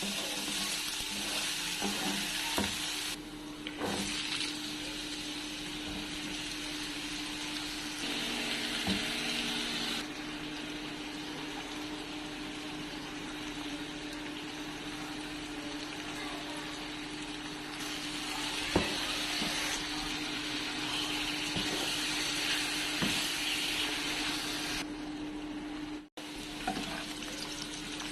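Qeema karela (minced meat and bitter gourd) frying in a pan: a steady sizzle with a few sharp knocks of a spoon as it is stirred. The sizzle shifts in strength at several points and drops out for a moment near the end.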